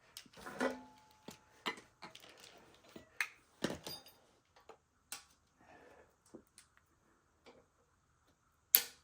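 Scattered clicks, taps and light knocks of hand tools and loose parts being handled during disassembly of an electric dirt bike, irregular, with one sharp loud click near the end.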